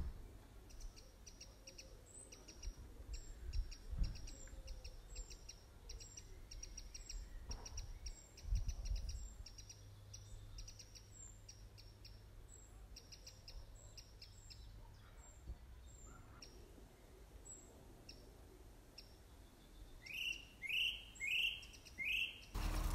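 Small birds singing: rapid runs of short high chirps, then near the end four louder calls that each slide down in pitch. A few dull low thumps about four and eight seconds in.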